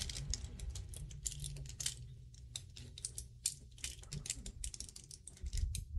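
Irregular light clicking and tapping of a stretch bracelet's silver-tone metal links and faceted stones knocking together and against long fingernails as it is turned in the hands.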